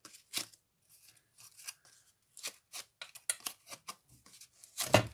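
Paper cardstock being handled and worked: a string of short, irregular crisp rustles and crackles, with one louder knock about five seconds in.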